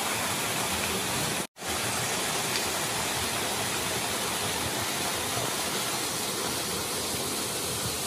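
Small waterfall pouring into a rock pool: a steady rush of falling and splashing water, broken by a split-second gap about one and a half seconds in.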